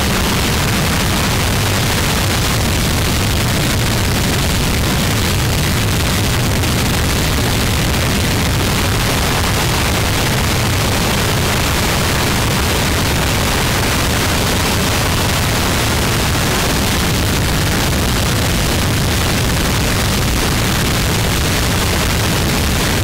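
Harsh noise music: a loud, unbroken wall of distorted static filling the whole range, heaviest in the low end, with no beat or pauses.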